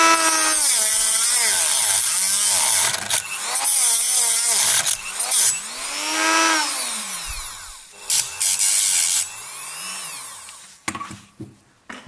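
Dremel rotary multitool with a cut-off disc grinding through aluminium cable, with a high hiss. The motor's whine rises and dips in pitch as the disc loads and frees in the cut. The tool stops near the end.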